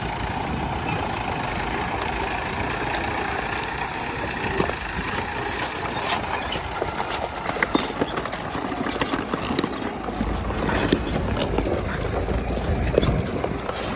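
An engine of heavy machinery running steadily, with scattered clicks and knocks; a low rumble grows stronger about ten seconds in.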